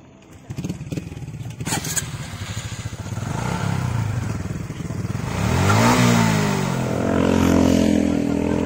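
Small motorcycle engine starting about half a second in with a clattery idle, then revved, its pitch falling and rising around six seconds before settling into a steady run.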